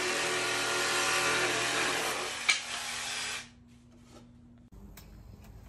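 Handheld power tool cutting through plywood, running steadily with a sharp crack about two and a half seconds in, then shutting off about three and a half seconds in. Only faint clicks of handling follow.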